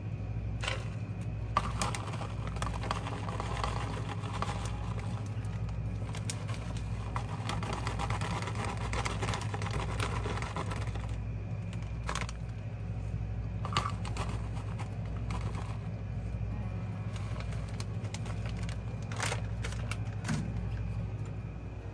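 Shredded mozzarella and its packaging being handled and tipped into a pot: soft rustling with scattered light clicks and clinks, over a steady low hum.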